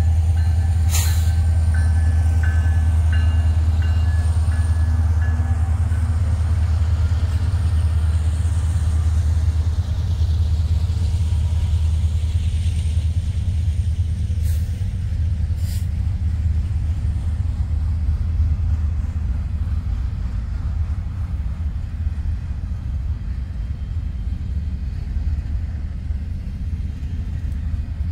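Union Pacific freight train rolling past with a deep, steady rumble that slowly fades. There are a few sharp clanks, one about a second in and two close together about halfway through.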